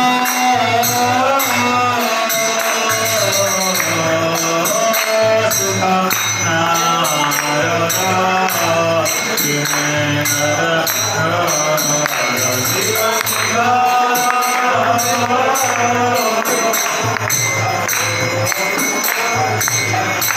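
Hindu aarti devotional music: a sung melody over steady jingling percussion, with rhythmic hand-clapping from the crowd.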